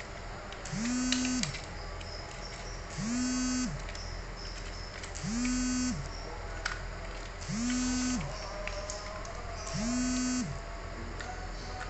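A small electric motor whirring in six short bursts about two seconds apart, each spinning up quickly, holding a steady pitch for about half a second, then winding down.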